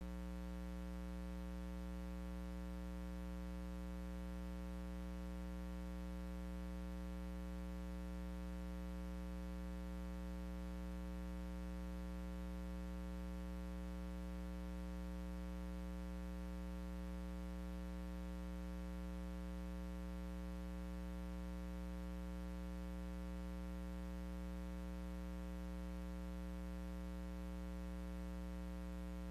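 Steady electrical mains hum with a buzzy series of overtones, over faint hiss.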